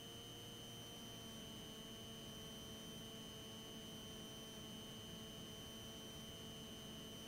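Near silence: a faint, steady electrical hum with a thin high whine on the cockpit intercom audio line between radio transmissions.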